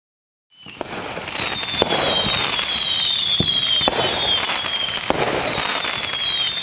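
Fireworks sound effect starting about half a second in and fading up over a second or so: sharp bangs every second or two over continuous crackling, with whistles that fall slightly in pitch.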